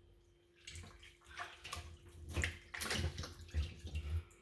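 Raw chicken being cut up with a kitchen knife that is not sharp enough: a run of irregular wet cracks, squelches and scrapes as the blade works through meat and joints.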